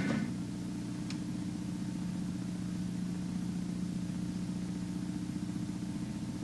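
Steady low hum with faint hiss (room tone), and one faint click about a second in.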